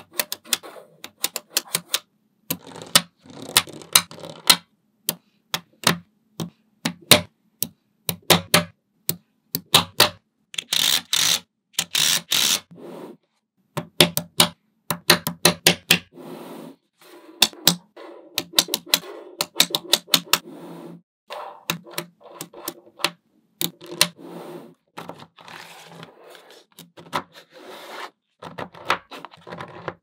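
Small magnetic balls clicking sharply together as they are snapped into place, in irregular runs of clicks. About eleven seconds in there is a denser stretch of the balls rubbing and rattling against each other.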